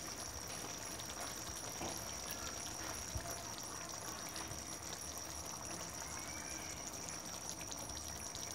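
Masala gravy simmering gently in a pan on a low flame, a soft steady bubbling with fine crackle, and a few soft knocks as fried meatballs are set into it. A steady high-pitched whine runs underneath.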